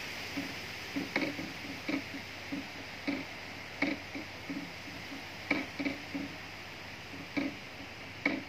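Steady wind rustling through tree leaves, overlaid by a run of short, irregular knocks or taps, about one or two a second.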